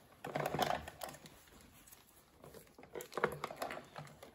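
Hard plastic toy pieces clicking and rattling as they are handled and fitted into a plastic toy trailer, in small clusters of clicks about half a second in and again around three seconds in.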